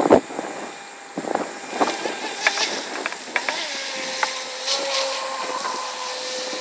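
Brushless electric motor of an RC speedboat running at speed across the water, a high whine that rises in pitch about halfway through and then holds steady. Irregular short crackles sound over it.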